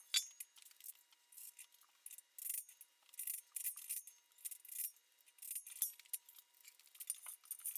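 Faint, scattered metallic clinks and rattles of bolts, washers and caster plates being handled and set on a steel stand frame.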